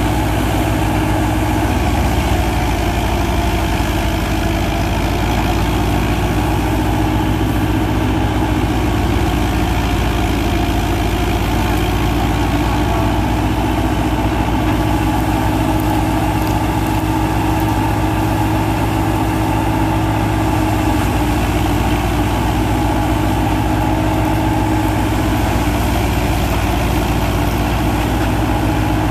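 New Holland Dabung 85 tractor's diesel engine running steadily under load, driving a wheat thresher through its PTO, the thresher's drum running along with it in one even, unbroken hum.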